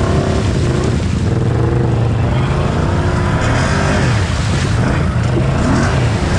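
Off-road vehicle engine running with its pitch rising and falling as it revs, while the vehicle is stuck in deep mud and not getting out.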